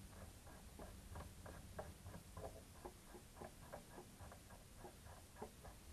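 Faint, irregular clicking, a few clicks a second, from a Wakefield ML1 (Unimat Super Adept type) mini lathe's handwheel and slides being worked by hand. The freshly cleaned parts run smoothly.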